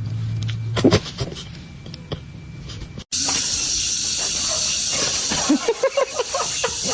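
A steady hiss lasting about four seconds, with a quick run of short high squeaky calls near the end. Before it comes a sharp knock about a second in.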